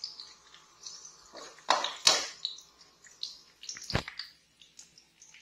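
Kitchen clatter: a few irregular knocks and scrapes of a utensil against a metal wok, with the sharpest knock about four seconds in.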